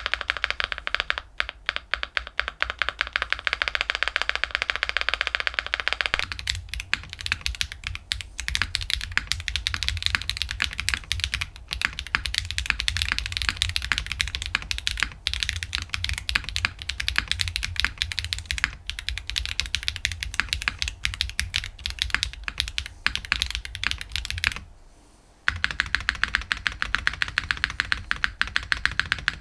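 Fast typing on mechanical keyboards fitted with Clackbits full-POM linear switches, a dense run of clacky keystrokes. The tone of the typing changes abruptly about six seconds in, and again after a short break near the end, as the test switches between keyboard builds.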